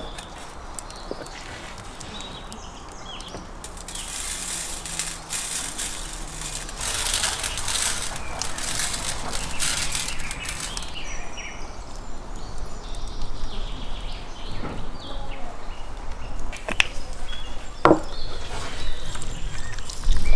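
Coarse salt sprinkled by hand onto an empty stainless-steel baking tray, a fine pattering hiss lasting several seconds. It is bracketed by a sharp knock as the tray is set down at the start and light knocks and handling near the end.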